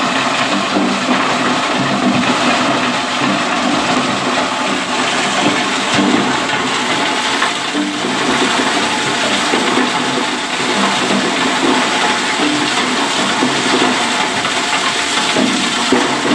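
Concrete block crusher running steadily, breaking up the blocks fed into it, with crushed aggregate pouring from its chute: a steady, dense noise.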